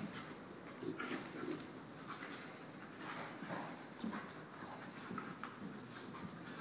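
Bull terrier and pit bull puppy at play: irregular scuffling with scattered sharp clicks and small dog noises.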